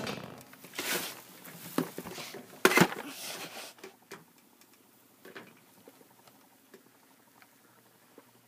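Handling noise as a motionette Santa figure is propped up on a box: rustling and scraping with a sharp knock a little under three seconds in. After about four seconds, only a few faint scattered clicks.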